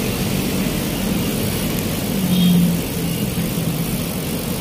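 Road traffic: vehicle engines running steadily, with a low hum that grows louder briefly about halfway through as one vehicle passes.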